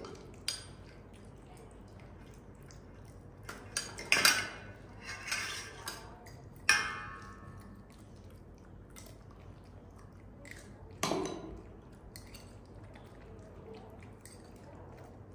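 Spoon and bowl clinking now and then during feeding: a handful of sharp knocks and clinks, the loudest about four and seven seconds in. The one near seven seconds rings briefly.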